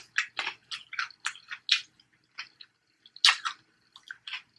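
Close-miked wet chewing and lip-smacking as a person eats, a quick string of short irregular smacks and clicks with a louder cluster near the end.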